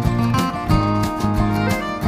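Background music with a steady beat and held pitched instrument notes.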